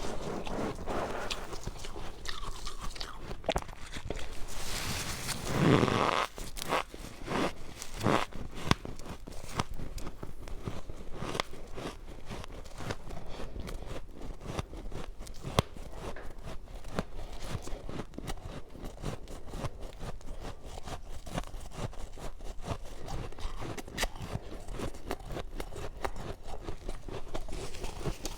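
Close-miked chewing of powdery freezer frost: a dense run of small, rapid crunches, with a louder, fuller bite about five to six seconds in.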